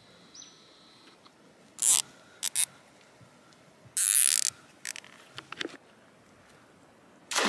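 Short scrapes and rustles of an opera house yabby net being handled and swung on a dry gravel dam bank. Near the end comes a splash as the net is thrown into the water.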